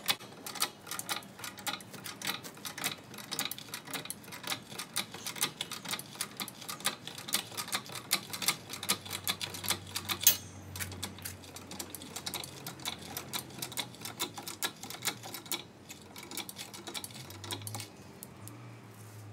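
Hydraulic floor jack being pumped to lift a car: a fast, irregular run of metallic clicks and ticks from the pump handle and mechanism, thinning out in the last few seconds, with one sharper click about ten seconds in.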